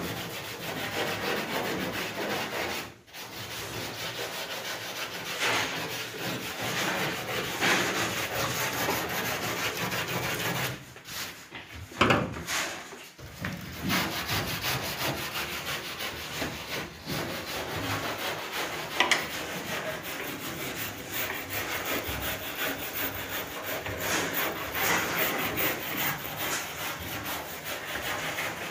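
Rough, continuous scraping and rubbing noise in repeated strokes, like hand sanding or scraping. It breaks off briefly about three seconds in and again around twelve seconds.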